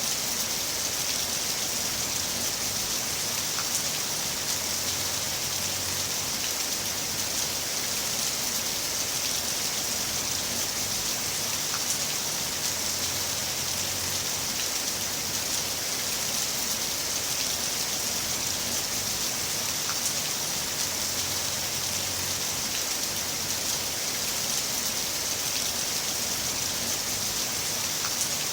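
Heavy rain falling steadily, an even hiss of drops on surfaces with no let-up.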